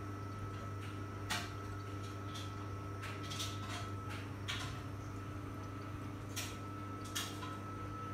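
Tumble dryer running with a steady low hum, with about five short, sharp knocks scattered unevenly through it.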